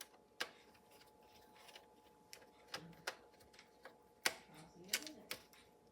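Faint, irregular clicks and taps of a small screwdriver and screws against a laptop's case as it is screwed back together, several sharp ticks spread over a few seconds.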